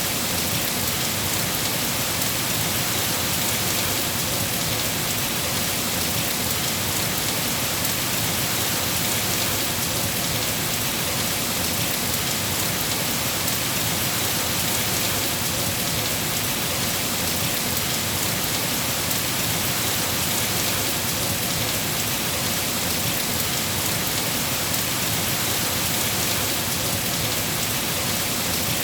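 Steady rain falling, an even hiss that does not change or let up.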